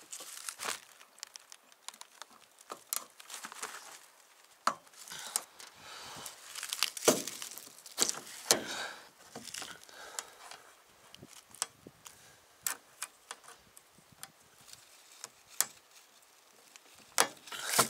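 Windshield wiper blades being swapped by hand on a truck's wiper arms: irregular sharp clicks, rattles and short scrapes of the metal blade frames and arm clips, with some crinkling.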